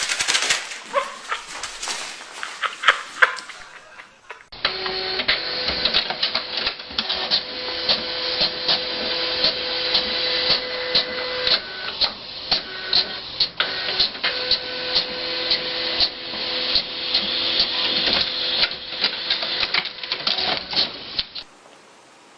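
A small machine whirring with a steady hum and a dense run of sharp mechanical clicks. A cut about four seconds in starts a new clip, and the clicking stops with another cut near the end.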